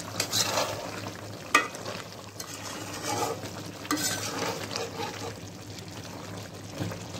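A metal spatula stirring beef pieces in a bubbling gravy in a metal pot, scraping and knocking against the pan, the sharpest knock about a second and a half in, over a soft hiss from the cooking liquid.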